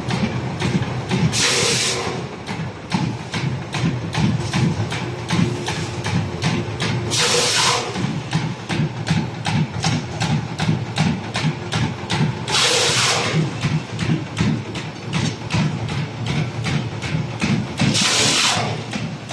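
Industrial paper/foil rewinding machine running with a fast, even clatter of about five ticks a second. A loud hiss cuts in four times, about every five and a half seconds, each lasting under a second.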